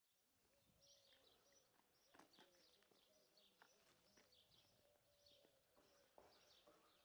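Very faint birds chirping repeatedly, fading in at the start, with a faint wavering tone beneath them.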